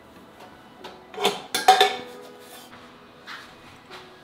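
Ceramic cups and dishes clinking and knocking as they are handled and set down: a quick cluster of sharp clinks with a short ring about a second and a half in, then a couple of lighter taps.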